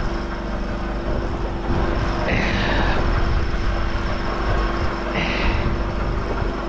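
A steady engine drone with a constant hum. Two short hissing sounds come about two and a half and five seconds in.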